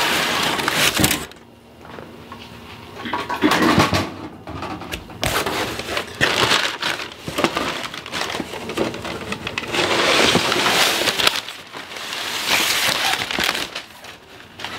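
Crumpled brown packing paper rustling in irregular bursts as it is pulled out of a cardboard shipping box, with the box's cardboard flaps being handled.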